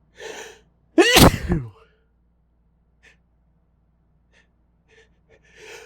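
A person sneezing hard once: a short gasping in-breath, then a loud sneeze about a second in whose voiced part falls in pitch. Near the end a second gasping in-breath starts, winding up for the next sneeze.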